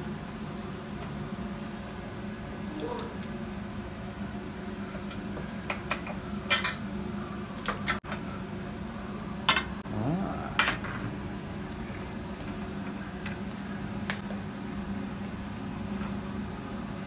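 Carving knife and fork clinking against a metal baking tray and a plate as a roast goose is carved, with a few sharp clinks about six to eleven seconds in, over a steady low hum.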